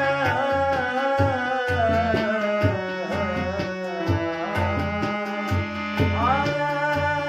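Harmonium playing sustained chords and melody while a man sings a slow melody with gliding pitch, over a steady tabla-like percussion rhythm.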